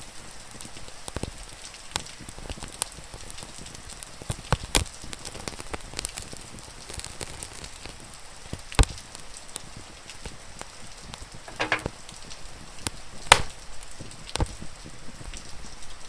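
Fire crackling with many scattered sharp pops over a steady hiss of rain. Two pops, about nine and thirteen seconds in, are louder than the rest.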